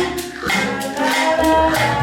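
Music with a steady percussion beat of about four strokes a second and a sung melody over it.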